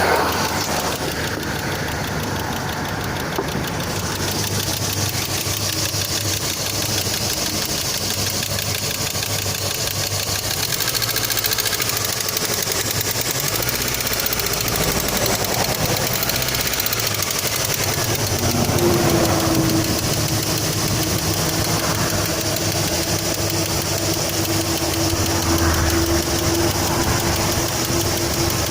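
Great Wall Safe SUV's engine running at idle with a knock in it. About two-thirds of the way in a steady whine joins the engine sound and holds.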